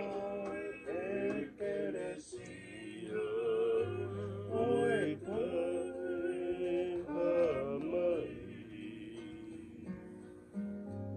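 Men singing together, holding long wavering notes, over strummed acoustic guitars and a ukulele.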